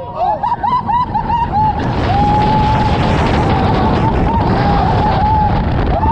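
Steel roller coaster train plunging down its first drop and through a tunnel. Riders shout as it goes over the top, then from about two seconds in a loud rush of wind over the microphone and track noise takes over, with a steady high tone held above it.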